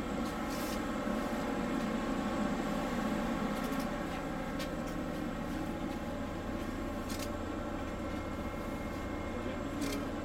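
Steady hum of a frigate's onboard machinery and ventilation: several steady tones sound together without change, with a few faint clicks.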